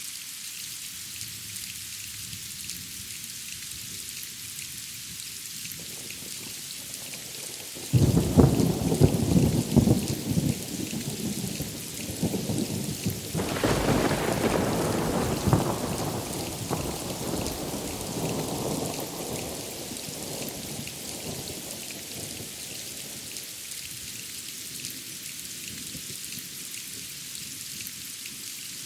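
Steady heavy rain hissing on surfaces, with a thunderclap about a third of the way in: a sudden sharp crack, a second surge a few seconds later, then a long rumble that rolls away.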